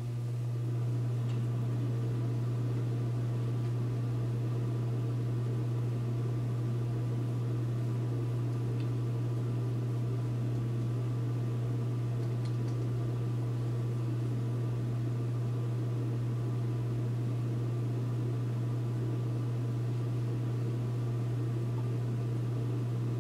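Steady low hum with a hiss over it, fading in over about the first second and then holding level.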